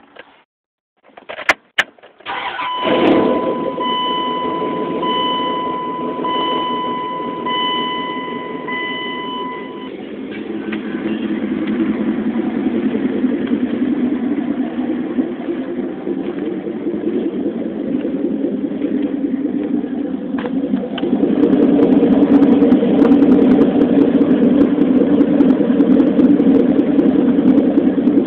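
Dodge R/T pickup's 360 (5.9-litre) V8 cranking and firing about two seconds in, then idling steadily. A dashboard warning chime dings about once a second until about ten seconds in. The engine gets louder from about twenty seconds in.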